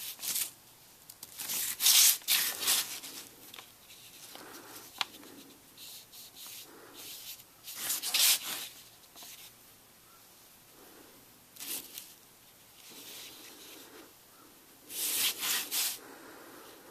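Rubbing and scuffing of a leather strap being handled on a paper-covered bench while a wool dauber wipes edge dye along its edge. It comes in irregular bursts of scraping, a few seconds apart, with quiet stretches between.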